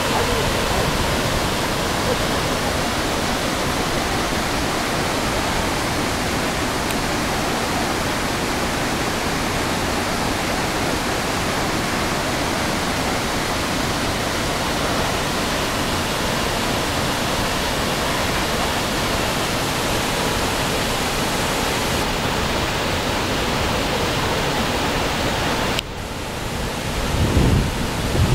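Waterfall pouring steadily into its pool, heard close as a loud, even rush of falling water. Near the end the rush turns duller, and a few low rumbling thumps follow.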